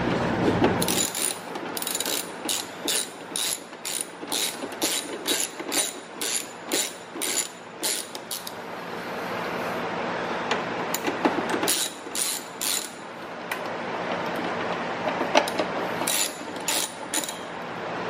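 Ratcheting screwdriver backing out the door lock's retaining screws on the edge of a car door. It clicks steadily, about two to three clicks a second, for several seconds, then in two shorter runs of clicks later on.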